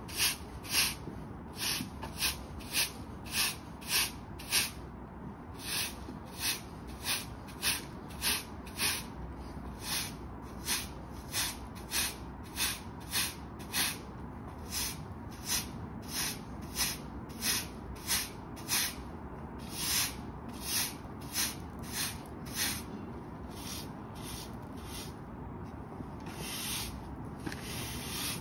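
Hard-bristle push broom sweeping dirt and debris across concrete paving bricks in short, quick strokes, each a dry bristle scrape, about one and a half to two a second. The even rhythm breaks up near the end into less regular scratching.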